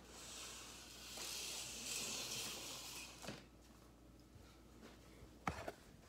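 Faint rustling hiss for about three seconds, then a few knocks and bumps near the end as the camera is handled.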